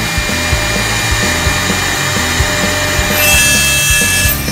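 Wood lathe running, with a tool cutting a square wooden blank in a rough scraping hiss that grows stronger about three seconds in, over background music with a steady low beat.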